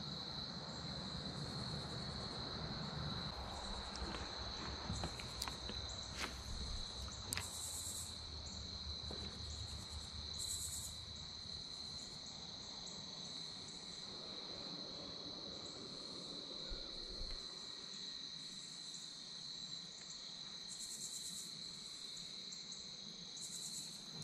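Evening insect chorus: a steady high-pitched trill that never lets up, with shorter, higher buzzes coming and going every second or two. A few faint clicks sound about a third of the way in.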